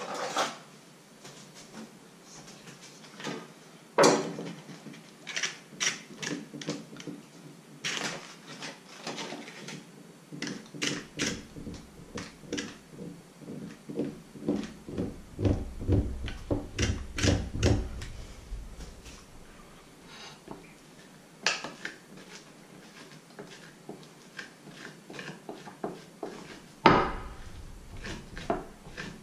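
Kitchen handling sounds: the rustle of butter's paper wrapper and a table knife scraping butter across a slice of dark bread on a plate, among short clicks and knocks. A sharp knock about four seconds in and another near the end are the loudest.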